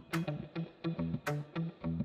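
Background instrumental music: short plucked guitar notes and a bass line over a light beat.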